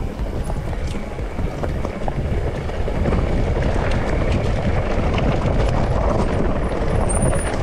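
Mountain bike being ridden over a trail: a steady rumble of tyres and wind on the microphone, with scattered rattles and knocks, getting louder about three seconds in.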